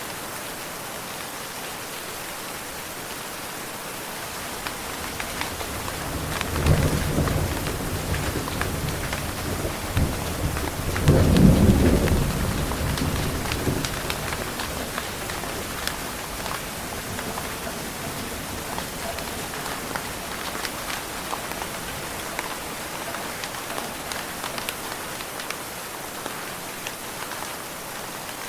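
Steady rain falling, with two rumbles of thunder about six and eleven seconds in, the second louder, each rolling off over a few seconds.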